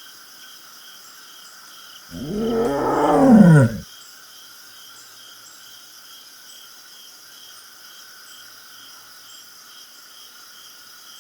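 Cheetah's voiced yawn about two seconds in: a drawn-out moan under two seconds long that grows louder and drops in pitch, then cuts off abruptly. A steady, rhythmic high chirping continues in the background.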